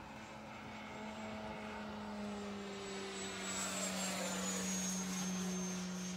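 E-flite F-16 electric ducted-fan RC jet flying past. The rushing fan noise swells to its loudest about two-thirds of the way in, while its high whine drops slightly in pitch as the jet goes by.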